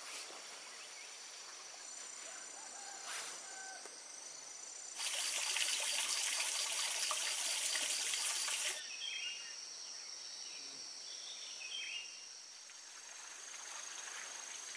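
Outdoor rural ambience with steady high insect tones; about five seconds in, a loud insect buzz starts abruptly, runs for about four seconds and cuts off suddenly. Short bird chirps follow.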